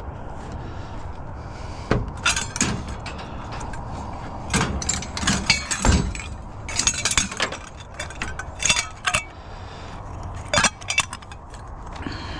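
Irregular clinking and clattering of hard metal and plastic parts as a wire is worked loose and pulled out of a piece of curbside scrap, busiest between about two and eleven seconds in.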